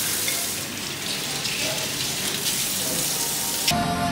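Steady rushing noise like running water, which cuts off suddenly near the end as music comes in.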